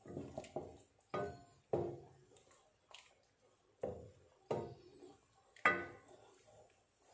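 Wooden spoon stirring squid in a simmering coconut-milk sauce in a nonstick frying pan, knocking and scraping against the pan. The knocks are irregular, about one a second, each with a short ring.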